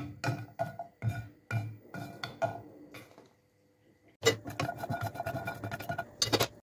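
Background music with a regular beat, dropping out for about a second a little past the middle, then starting again.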